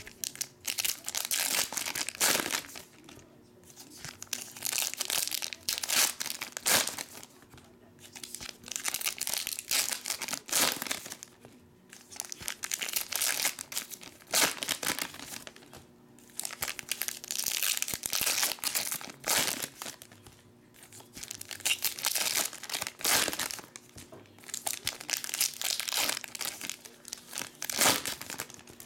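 Foil trading card pack wrappers crinkling and tearing as they are ripped open and handled, in spells of a second or two with short pauses between.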